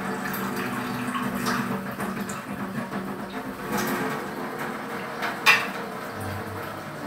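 Water running from a kitchen tap at the sink, with the clatter of utensils and dishes. One sharp clink about five and a half seconds in is the loudest moment.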